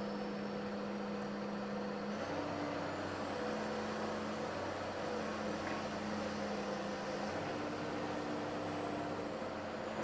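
Komatsu PC200 excavator's diesel engine running steadily under work, its note stepping to a different pitch about two seconds in and again about seven seconds in.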